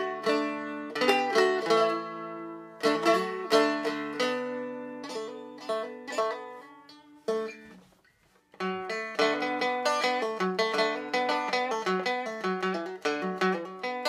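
Seagull Merlin stick dulcimer played with a pick: a plucked melody on the doubled melody string over ringing drone strings. The notes die away to a brief gap about eight seconds in, then quicker, busier strumming starts.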